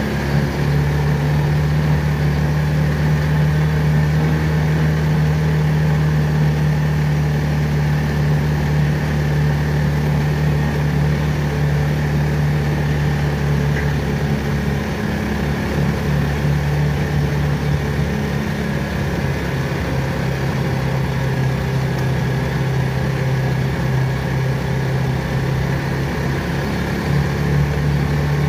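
Motorcycle engine of a motorized tricycle, heard from inside its sidecar, running steadily as it drives along. Its note drops a little about halfway through and rises again near the end.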